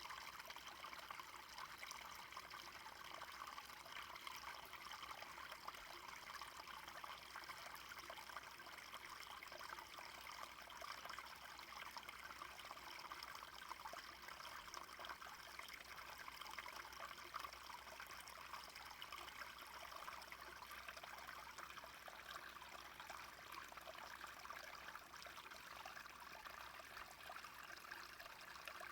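Small brook flowing: a steady, faint babbling trickle of running water.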